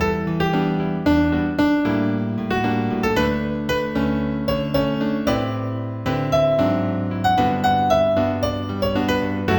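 Piano music: single notes and chords struck a few times a second, each ringing and fading, over sustained low bass notes.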